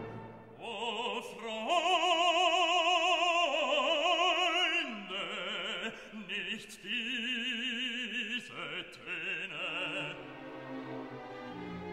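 Music: an operatic voice singing long held notes with wide vibrato.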